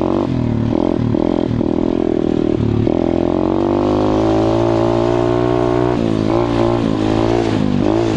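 KXD 125cc pit bike's single-cylinder four-stroke engine under way, its pitch rising and falling with the throttle: choppy for the first three seconds or so, then a steady, slowly climbing run, then wavering up and down near the end.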